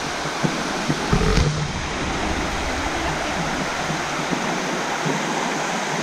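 Steady rush of a waterfall, water pouring over rock, with a few low bumps about a second in.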